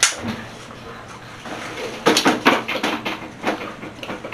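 A sharp knock at the start, then, from about halfway, a child's short wordless vocal sounds.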